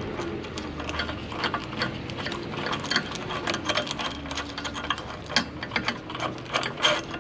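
Steel nut and washer being spun by hand onto a long threaded bolt of a bushing press tool, giving light, irregular metallic clicks and rattles, over a faint steady hum.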